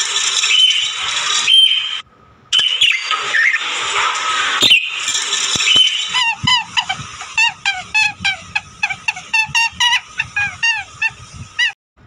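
Dense chattering and chirping of a crowd of caged budgerigars, breaking off briefly near the start. About halfway in it gives way to a rapid series of short, nasal honking calls, about three a second, over softer chirps.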